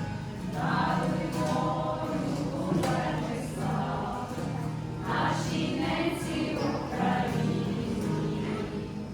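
A choir singing a slow hymn in long held notes over a steady low sustained tone.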